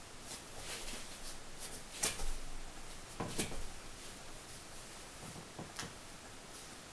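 Soft rustles and a few light knocks from a person shifting hands and feet on a yoga mat while moving into a wide side-lunge stretch.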